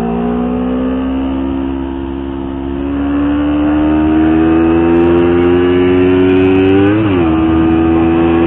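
Motorcycle engine pulling under acceleration, its pitch climbing slowly and steadily. Just after seven seconds in, the revs briefly flare and then drop back, and the engine holds a steady pitch.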